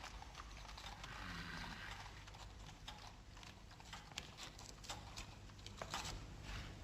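Faint, irregular light clicks and knocks over a low background hum.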